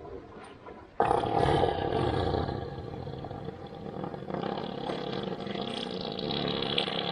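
An elephant breaking wind: one long, loud, fluttering blast of gas that starts abruptly about a second in and keeps going.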